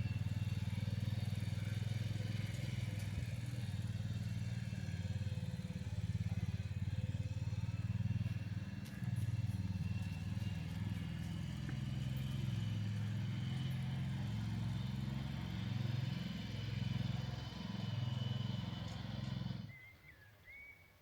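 An engine runs with its speed rising and falling, then cuts off suddenly near the end. A single bird chirp follows.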